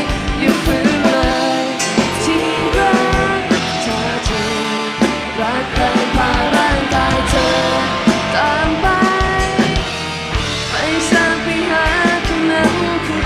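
Thai-language pop-rock song: a sung vocal line over electric guitar and drum kit.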